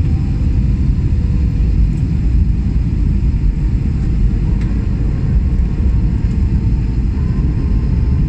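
Steady low rumble of an Airbus A320-family airliner's jet engines and airflow, heard inside the passenger cabin on the approach to landing, with a faint steady hum over it.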